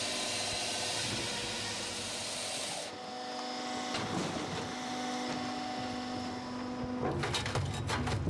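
A Spaltfix firewood processor running: a hissing mechanical whir, then a steady hum about three seconds in. Near the end it turns to a lower rumble with rattling clicks.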